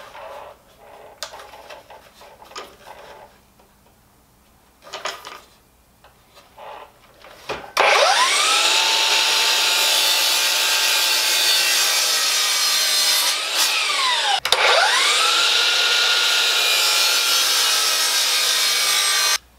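Cordless brushless DeWalt sliding compound miter saw cutting a miter in a wood board. After a few light knocks of the board being set in place, the saw starts suddenly about eight seconds in and runs steadily. Its pitch falls and it stops briefly about two-thirds of the way through, then it runs again until it cuts off abruptly near the end.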